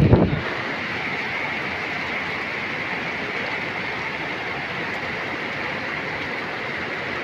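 Steady rushing noise of a strong rainy-season windstorm. Heavy wind buffeting on the microphone drops away within the first half second.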